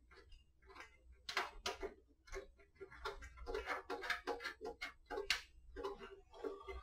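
Light, irregular metallic clicks and taps of hands working bolts and square nuts on a metal conveyor's side rail.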